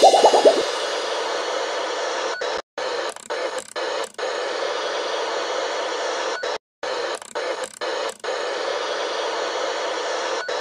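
Steady hiss of static noise, like a radio tuned between stations, that drops out briefly several times and cuts off suddenly at the end.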